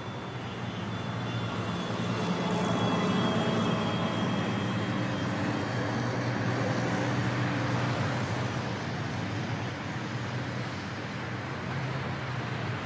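Engine of a double-decker bus running as it drives along, with road traffic; the sound swells louder for several seconds in the middle and then eases.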